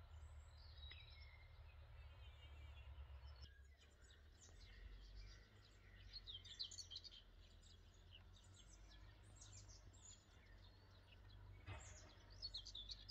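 Faint outdoor birdsong: many short, high chirps, more of them from about halfway on, over a low steady rumble.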